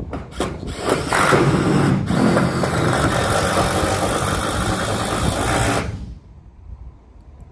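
Power drill driving a roofing screw into metal roof sheeting. It gives two short bursts, then runs steadily for about five seconds with a brief dip, and cuts off near the end.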